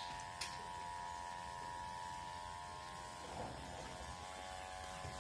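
Faint steady electrical buzz with a light click about half a second in.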